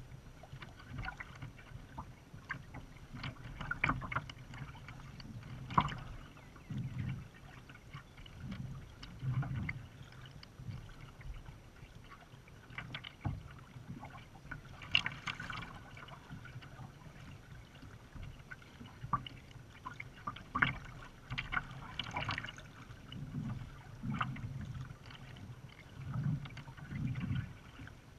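Kayak paddling: water splashing and lapping around the kayak's hull with irregular splashes from the paddle strokes, and now and then a sharper splash or knock.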